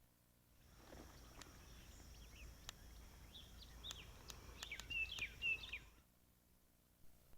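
Faint forest ambience: several short bird chirps, the loudest about five seconds in, over a steady high insect hum, with scattered light clicks. It starts about a second in and cuts off abruptly about six seconds in.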